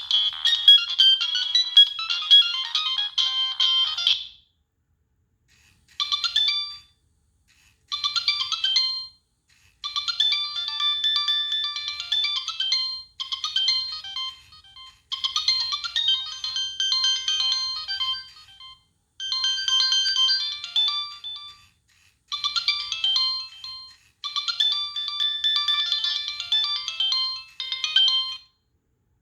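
Nokia 3588i ringtone playing from the phone: a high, thin electronic melody with nothing in the bass. The tune stops about four seconds in, and after roughly two seconds of silence a melody resumes in short phrases separated by brief pauses.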